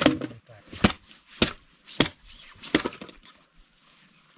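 Hatchet chopping into a stick of firewood to split it into kindling: five sharp strikes, one about every two-thirds of a second, with the last near the three-second mark.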